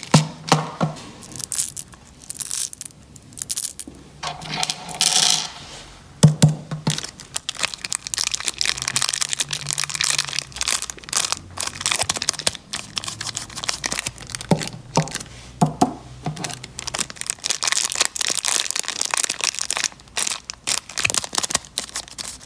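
Plastic candy wrappers crinkling and tearing as sweets are unwrapped, with many sharp cracks and clicks.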